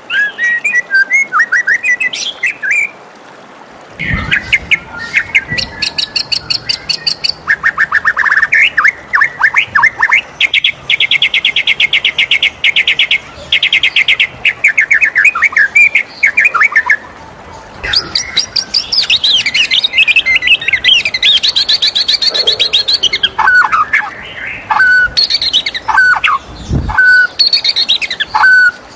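White-rumped shama singing a varied song of rapid trills, chattering runs and clear whistled notes, in phrases broken by short pauses.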